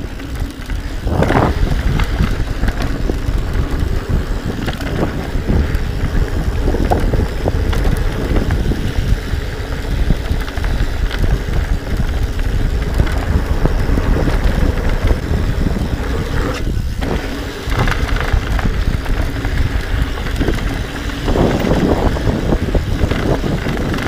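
Wind rushing over the microphone of a camera mounted on a descending mountain bike, with the tyres rolling and rattling over a dusty dirt trail. The rumble is steady and dense with small knocks.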